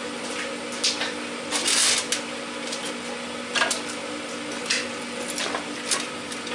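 Scattered clinks and knocks of hands working on sheet-metal furnace ductwork, over a steady low hum.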